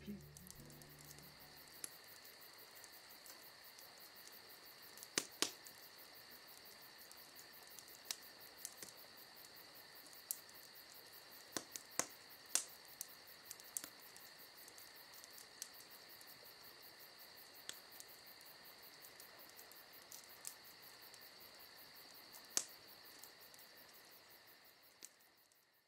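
Faint, steady, high-pitched insect trill, with a dozen or so scattered sharp clicks. It fades away near the end.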